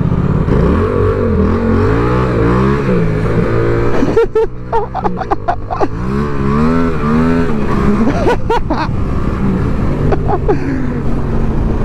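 Yamaha MT-07's parallel-twin engine accelerating, its pitch climbing and then dropping sharply twice, about four and eight seconds in, as it shifts up.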